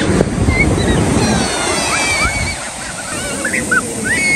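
Small waves breaking and washing up the beach, with children's high voices calling out in short bursts.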